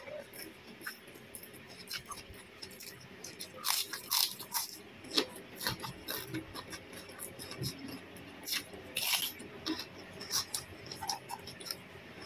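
Close-up crunching and chewing of raw cucumber bitten straight from the piece, a series of short crisp crunches with the loudest clusters about four seconds in and again about nine seconds in.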